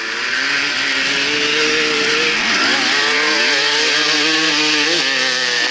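Suzuki RM250 single-cylinder two-stroke dirt bike engine pulling under load as it is ridden. The revs drop about two and a half seconds in, then climb again, with a hiss of wind over the microphone.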